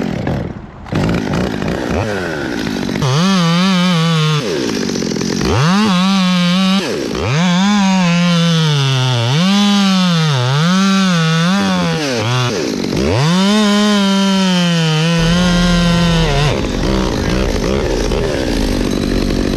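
Chainsaw running at high revs through a cut in a fir trunk. Its pitch sags and recovers over and over as the wood loads the chain, and drops sharply a few times when the throttle eases. Near the end the tone fades into a rougher noise.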